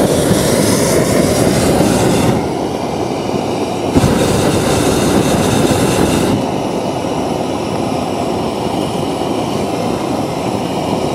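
Hot air balloon's propane burner firing with a steady roar, overhead in the basket. Twice, at the start and about four seconds in, a harder, hissier blast of about two seconds rises above it.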